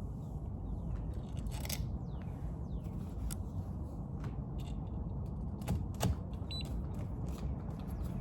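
Scattered light clicks and scrapes of a keypad door lock's parts being handled and bolted together, over a steady low background rumble.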